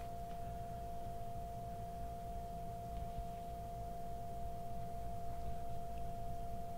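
A steady background tone with a lower hum beneath it, unchanging throughout, and a few faint ticks.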